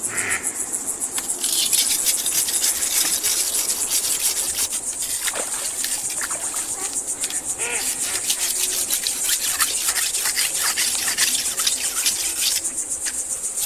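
Forest insects trilling in a dense, steady high-pitched chorus, with scratchy rustling mixed in.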